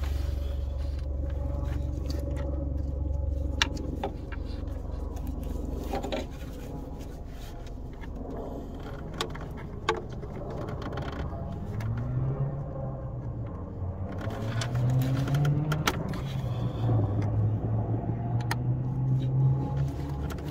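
Scattered small clicks and scrapes of a screwdriver prying at a stuck plastic sensor connector. A low hum runs under the first few seconds, and from about halfway a motor vehicle engine is heard with its pitch rising and falling.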